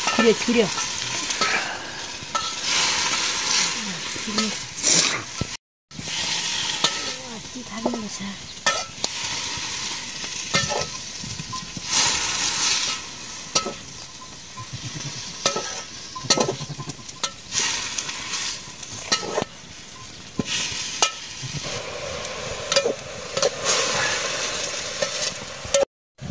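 Greens frying and sizzling in a pan, stirred with a spoon that scrapes and knocks against the pan.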